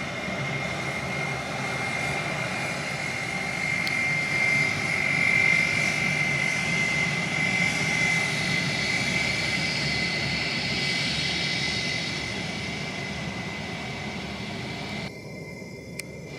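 Airbus A320-family jet airliner's twin jet engines running as it rolls along the runway: a steady high whine over a rushing roar. It grows louder to a peak about five seconds in, then slowly fades.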